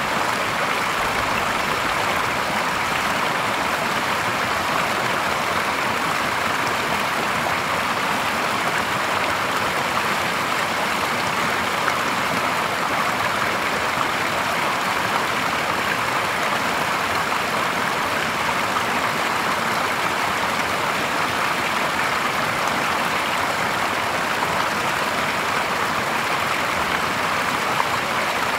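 Small cascade of water pouring from a stone bank into a shallow, clear stream: steady splashing and rushing water, unchanging throughout.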